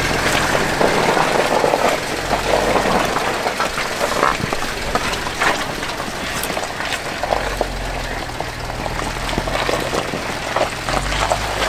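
Jeep Wrangler JK Unlimited's engine running low and steady as it crawls slowly through deep mud ruts, with scattered short clicks and scrapes from the tyres and brush.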